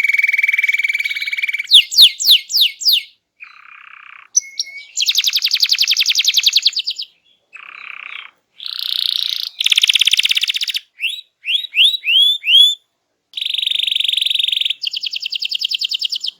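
A canary singing a vigorous song of rapid rolls and trills, changing phrase every second or two. About two seconds in it gives a string of loud, quick downward-sweeping notes, and around eleven to twelve seconds in a run of rising whistled notes.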